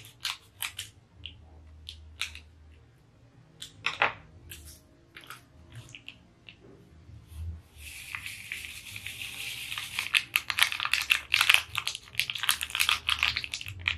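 Scissors snipping open instant coffee sachets, with a few sharp clicks and crinkles of the foil packet. From about eight seconds in, instant coffee granules pour from the sachet into a ceramic bowl in a steady, dense rustling hiss.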